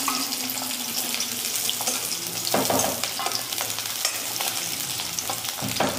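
Chopped onions sizzling in hot oil in a metal kadai as they are stirred with a spatula, with two louder strokes of the spatula, about halfway through and near the end.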